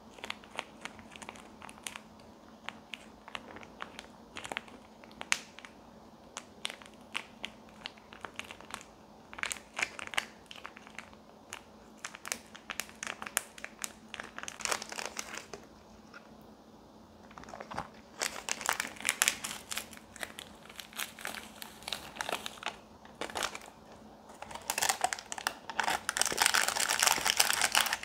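A plastic sauce sachet crinkling and crackling as it is squeezed and worked by hand into a cup ramen. The crinkling comes in spells and is densest and loudest in the last few seconds, as the foil lid is handled.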